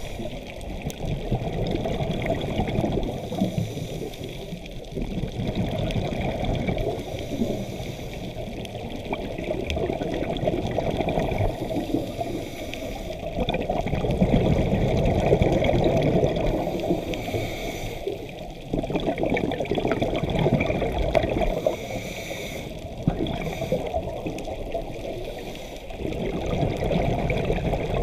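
Scuba regulator breathing underwater: a short hiss on each inhale, then a gurgling rush of exhaled bubbles, repeating every four to five seconds.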